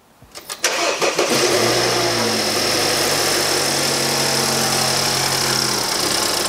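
BMW F30 328's turbocharged four-cylinder engine cranked by the starter and catching under a second in, on its first start after the rebuild. It runs at a raised idle that climbs about two seconds in with a steady high whine over it, then the idle steps down near the end.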